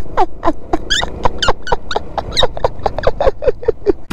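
A person laughing hard: a fast run of short, high-pitched 'ha' sounds, about five a second.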